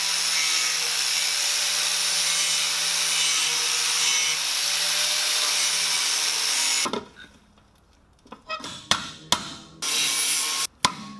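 DeWalt angle grinder with an abrasive disc grinding steel, running steadily under load for about seven seconds before cutting off abruptly. It grinds away the weld and damaged metal holding the chair's centre ring to the inner pipe. A few scattered clicks and knocks follow, then a second short burst of grinding near the end.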